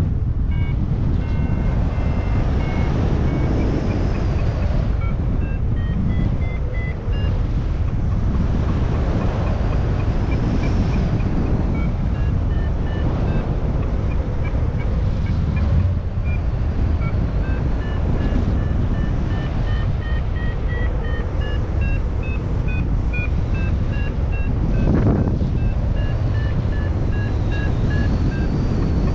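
Steady wind rush on the camera microphone in flight, with an XC Tracer Maxx variometer sounding a string of short beeps whose pitch steps up and down: the vario's climb tone, signalling that the paraglider is climbing in lift.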